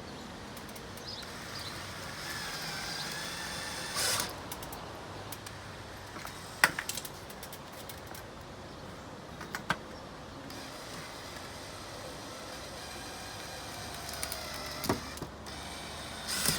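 Power drill driving screws through a panel into a wooden window frame: two runs of motor whine whose pitch sags as each screw bites, with a few sharp knocks in between.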